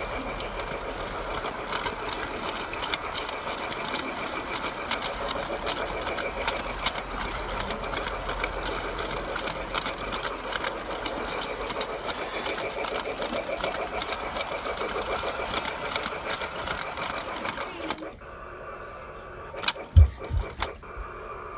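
Small battery-powered toy train's electric motor and gears running with a fast, steady whirring rattle. It stops about three-quarters of the way through, followed by a couple of low thumps.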